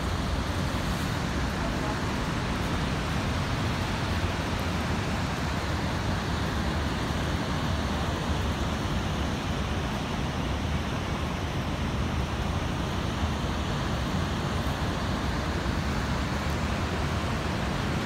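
Steady roar of rushing water from the Rhine Falls and the fast, churning river below it.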